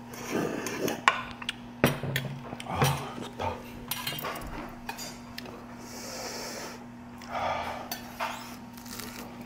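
Cutlery clinking and knocking against dishes in scattered, irregular strikes, over a faint steady hum.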